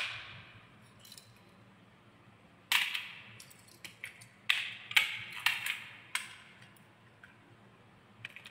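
Small toy trucks being handled and set down on a board: a sharp knock at the start, then a run of clacks and knocks of hard plastic and metal, each ringing briefly, from about three to six seconds in.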